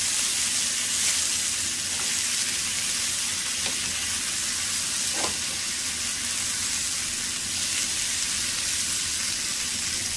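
Green beans, mushrooms and garlic sizzling steadily in a nonstick frying pan as butter melts into them, stirred with a wooden spoon.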